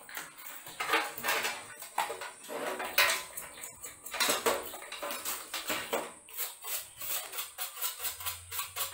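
A brush's bristles scrubbing dust out of a metal PC case, a run of short scratchy strokes. In the second half it settles into quick regular strokes, about three a second.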